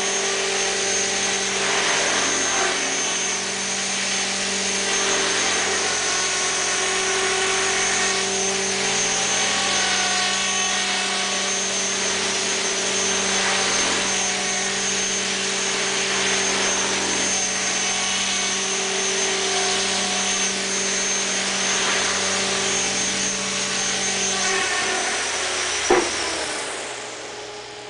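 Helicopter's main rotor and tail blades spinning in reverse rotation, driven by a steady high-pitched motor whine over a lower hum and a whirring hiss. Near the end a sharp click comes, and the whine winds down and fades.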